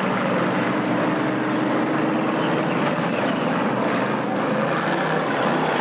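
Pure stock dirt-track race cars' engines running together in a steady, continuous drone.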